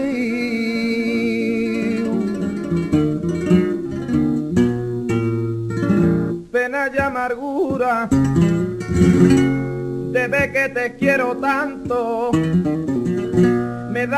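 A fandango: flamenco singing with Spanish guitar. A sung note wavers and holds at the start, then the guitar strums alone for several seconds, and the ornamented voice comes back near the end.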